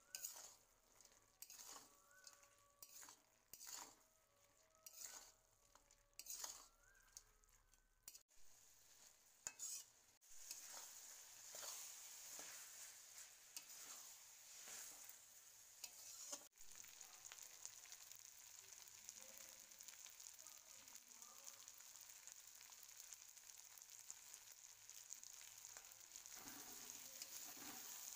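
Metal spatula stirring and scraping a spiced bitter-gourd, potato and fish fry in a wok. Separate strokes come for about the first ten seconds, then a steady, faint frying sizzle takes over and grows a little louder toward the end.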